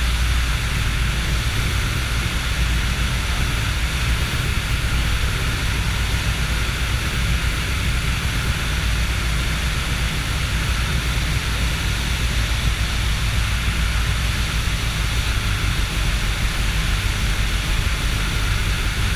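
Steady drone of a motor glider in flight heard from inside the cockpit: a low engine hum under a constant rush of air noise, unchanging throughout.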